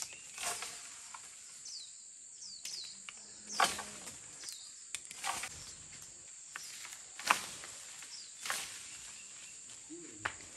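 A bamboo pole striking tree branches in about seven irregular knocks, with the leaves rustling after each. Under them runs a steady high insect hiss, and a few short high chirps come in the first half.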